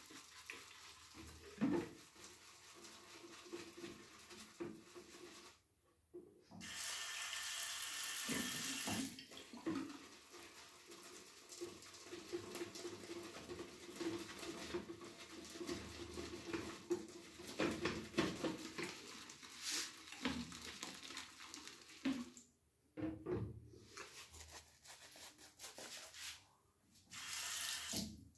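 Bathroom sink tap running in two short spells, about six seconds in for a few seconds and again briefly near the end, with scattered wet clicks and knocks of handling in between.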